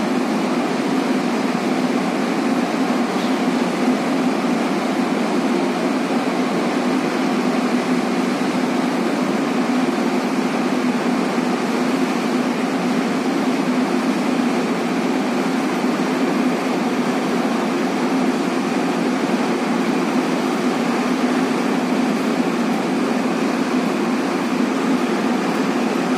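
Steady machinery drone with a strong low hum, unchanging throughout, from heavy offshore plant machinery.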